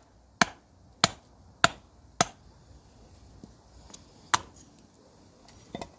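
Hand adze chopping into plum wood to hollow out a bowl: four sharp strikes a little over half a second apart, a fifth after a pause, and a fainter knock near the end.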